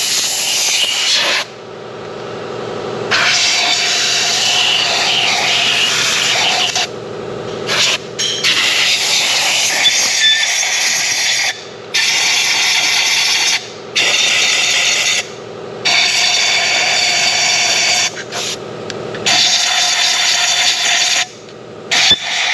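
Compressed-air blow gun hissing loudly in repeated blasts of one to four seconds with short pauses, blowing debris out of the intake ports of a Northstar V8 cylinder head.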